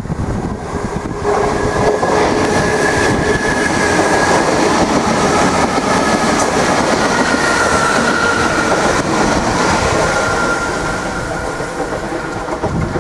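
Irish Rail DART electric train passing close by: wheels running on the rails with a steady whine, loud from about a second in and fading as it draws away near the end.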